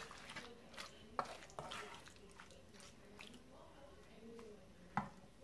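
Wooden spoon stirring raw small fish through thick, wet spice paste in a pan: faint, irregular squishing and scraping strokes, with a sharp knock of the spoon against the pan about a second in and another near the end.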